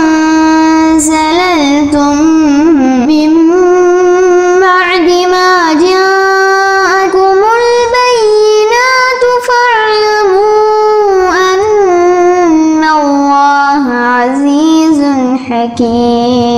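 A boy's voice chanting Quran recitation (tajweed) in one long melodic line, holding drawn-out notes with wavering ornaments. The pitch steps lower toward the end.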